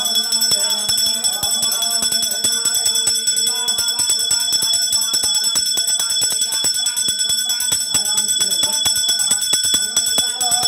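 Temple bells rung rapidly and without a break for the aarti, a dense clanging with bright high ringing tones, and voices faintly underneath.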